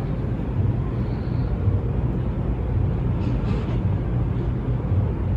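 Steady low background rumble with no distinct click or voice.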